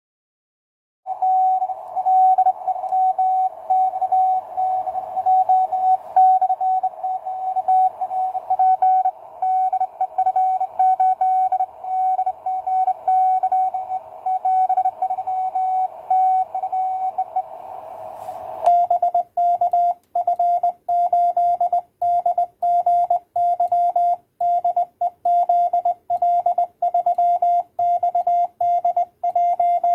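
Morse code (CW) tones from a QCX Mini 5-watt transceiver on 20 metres: a keyed tone over band hiss, then from about two-thirds through a clean keyed tone with silent gaps, typical of the rig's sidetone while transmitting.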